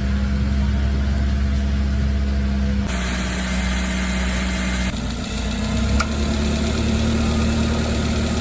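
Subaru Sambar kei van's engine idling steadily, with a steady low hum and drone. Its character changes abruptly about three and five seconds in, as clips are spliced. This is the setting for tracing an abnormal noise to the air-conditioning compressor.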